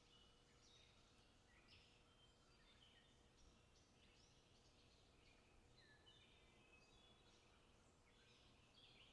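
Faint birdsong: short, bright, chirping phrases come every second or so, over a quiet background hiss.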